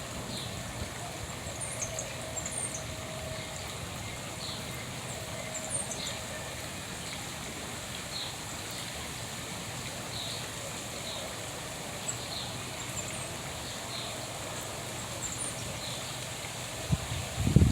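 Wild birds chirping: short high chirps repeating every second or so over a steady background hiss, with a few low thumps near the end.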